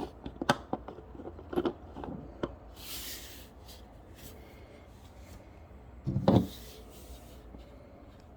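Parts of a Harrelson 5MM mouthpiece being handled while it is taken apart or put together: a series of small sharp clicks and knocks in the first couple of seconds, a short rubbing sound around three seconds in, and a louder cluster of knocks about six seconds in.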